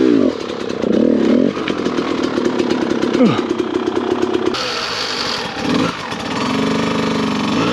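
Dirt bike engine revving hard under load, its pitch swinging up and down with the throttle, held high for a few seconds, then dropping and rising again.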